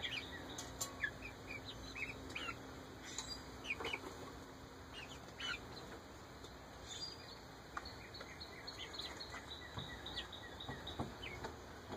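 Young Ameraucana chickens softly peeping and chirping, in short scattered calls, with a few faint ticks among them.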